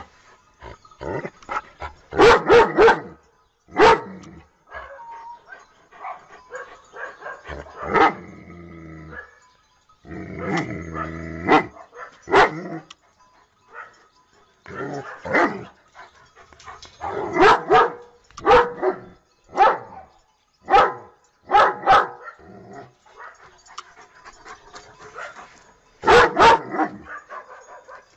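German Shepherd barking: loud barks singly and in quick runs of two or three, with short pauses between, repeated throughout.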